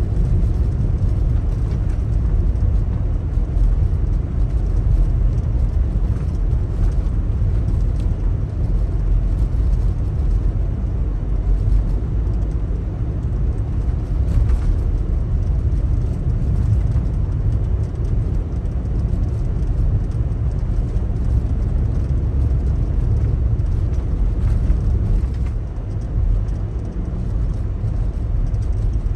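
Daihatsu Taft driving on a snowy road: a steady low rumble of engine and tyre noise, easing a little near the end.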